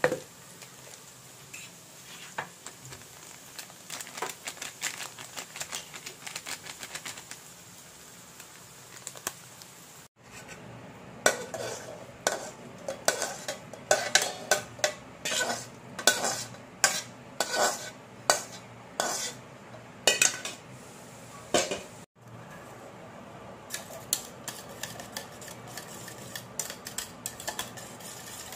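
Onions and green chillies sizzling in an aluminium kadai while a spatula stirs them with small clicks. Then loud, irregular metal clinks and scrapes as the fried onions are scraped out of the pan into a steel bowl of egg, and finally lighter repeated clinks of a spoon mixing the egg in the steel bowl.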